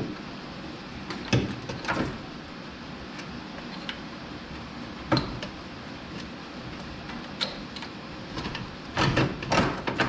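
A few scattered knocks and clunks from work on a car's front end over a steady background hum, with a quick cluster of them near the end.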